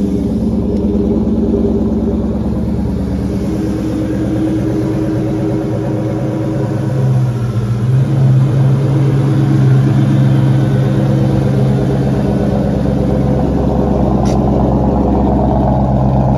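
2004 Ford Mustang Mach 1's 4.6-litre DOHC V8 idling steadily, a little louder from about seven seconds in.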